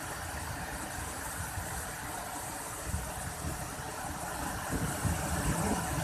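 Steady roar of a river waterfall in high flow, muddy water rushing over several rock ledges into a churning pool, with an uneven low rumble underneath.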